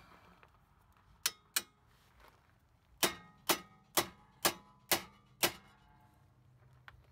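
Steel claw hammer striking the nuts left threaded on the strut-to-knuckle bolts, pounding the bolts out of the steering knuckle. It lands two sharp metallic hits a little over a second in, then a steady run of six more about two a second, each with a brief ring.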